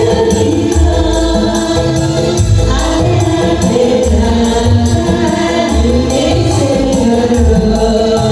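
Music with voices singing together over a steady beat: a low drum thumping regularly and jingling, tambourine-like percussion ticking on top.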